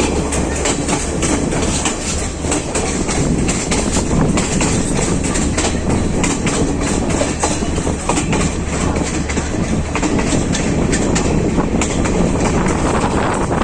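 Train running on its rails: a steady rumble with a rapid, irregular clatter of wheels over the track.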